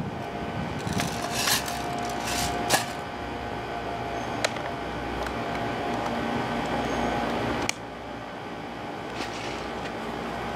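Handling noises of an airsoft rifle being packed into a padded gun bag: a few sharp knocks and rustles over a steady background hum.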